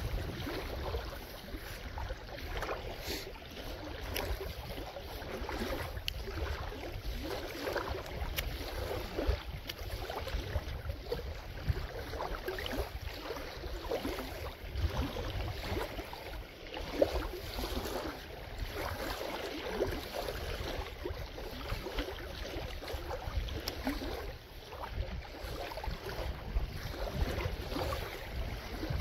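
Steady low rumble of wind on the microphone in the rain, with light irregular rustling and patter as a wet magnet-fishing rope is pulled in hand over hand.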